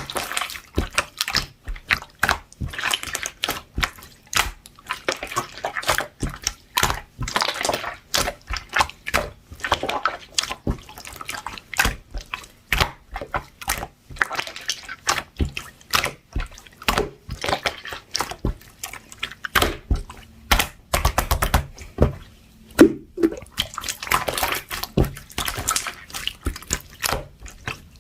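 Blue pearl-marbled slime being squished, stretched and poked by hand, giving a continuous run of irregular wet clicks, pops and squelches.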